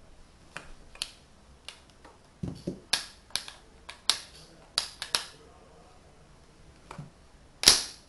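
Tegu magnetic wooden blocks clicking together and being pulled apart in the hands: a series of sharp wooden clacks, thickest between about two and five seconds in, with the loudest clack near the end and a couple of duller knocks about two and a half seconds in.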